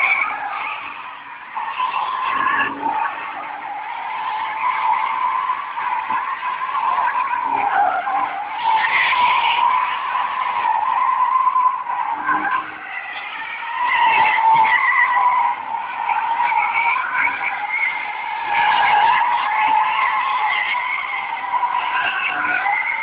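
Nissan Z sports car drifting in tight circles: its tyres screech without a break, swelling and fading every few seconds as it spins, with the engine revving hard under the screech.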